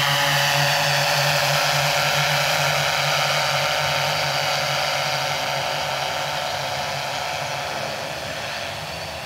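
Hexacopter's six electric motors and propellers whirring in flight, a steady multi-toned buzz that grows fainter as the copter flies away.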